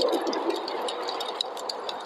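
Wood fire in a fireplace crackling, with frequent sharp pops and snaps, over a steady rushing snowstorm wind that is a little louder in the first half second.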